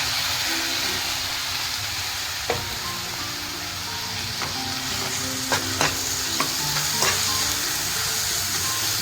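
Onions and a green chilli and coriander paste sizzling in hot oil in a kadai while being stirred. A spatula knocks and scrapes against the pan once about two and a half seconds in, then several times in the second half.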